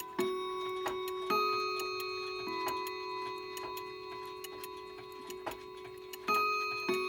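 Key-wound clock chiming a few ringing notes of different pitch, each struck and left to ring on, over a clock's steady ticking.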